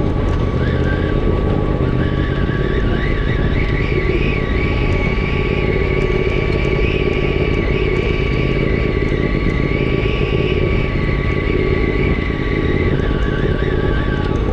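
Side-by-side UTV engine running steadily under way, with a high whine that climbs a few seconds in, holds, and drops back near the end as the engine speed changes.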